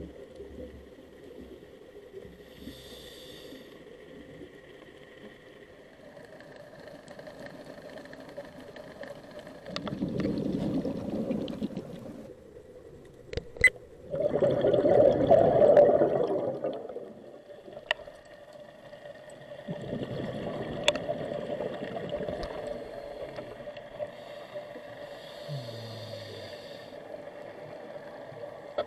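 Underwater sound through an action camera's housing: three bursts of bubbling rumble from a scuba diver's exhaled regulator bubbles, a few seconds apart, over a steady hum. A few sharp clicks stand out between them.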